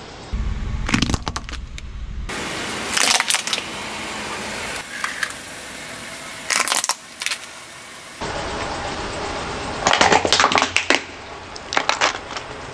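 Plastic toy motorcycles cracking and crunching under a slowly rolling car tyre on concrete, in several separate bursts of sharp cracks. The longest, densest run of cracking comes near the end as the tyre runs over a white toy motorbike.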